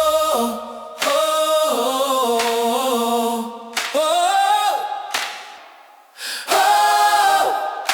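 Wordless a cappella singing, voices holding sustained notes in about four phrases with short breaks between them: a vocal interlude between verses of a worship hymn.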